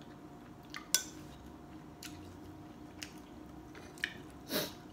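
A person eating rice-noodle soup with chopsticks and a spoon: a sharp click of a utensil on the bowl about a second in, a few faint clicks, then a short slurp of noodles near the end.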